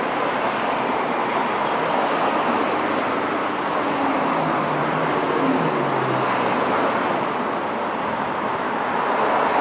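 Steady urban road-traffic noise, with a passing vehicle's engine hum coming and going about halfway through.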